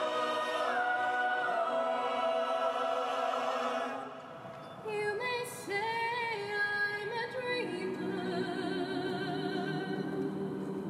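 Several voices singing a held chord in harmony, which fades out about four seconds in; then a woman sings solo with a wide vibrato, and more voices join her near eight seconds.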